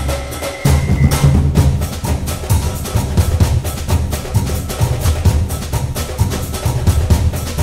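Background music with a steady percussive beat, clicky wood-block-like hits over a bass line.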